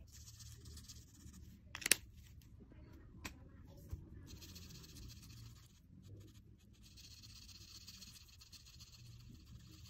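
Dual-tip marker's chisel tip rubbing across paper in repeated colouring strokes, a steady scratchy hiss that breaks off briefly now and then, with a sharp tap about two seconds in.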